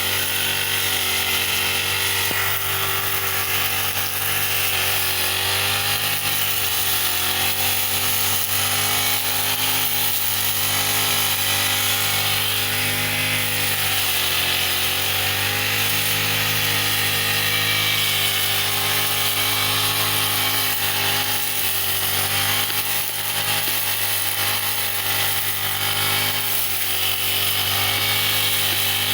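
Brush cutter engine running steadily at high speed while cutting grass, its pitch dipping briefly a few times under load.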